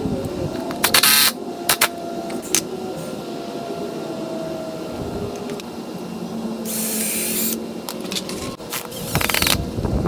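Power drill running in three short bursts into wooden boards, with sharp clicks and knocks from handling the wood and tool between them.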